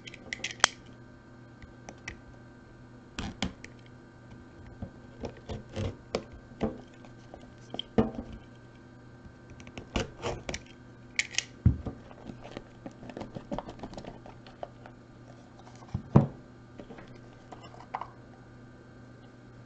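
Hands handling a small cardboard trading-card pack box: a utility knife cutting its seal band, then the lid opening and a stack of thick cards sliding out, heard as irregular clicks, taps and short scrapes over a faint steady hum.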